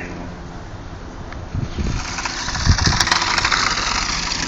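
Toy remote-control car's small electric motor and gears whirring as it drives on the driveway, growing louder about two seconds in. A few low thumps about two and three seconds in.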